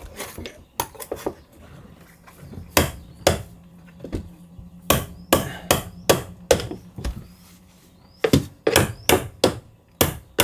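Hammer striking a tool driven into the sealant around a boat's window pane to cut the pane free: a series of sharp knocks, a few a second, in runs with short pauses between.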